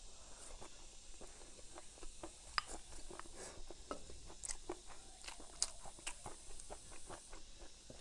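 Close-up chewing of a mouthful of rice with stir-fried pickled mustard greens, bamboo shoots and cured pork: soft wet chewing broken by small crunches and clicks, with two sharper clicks about two and a half and five and a half seconds in.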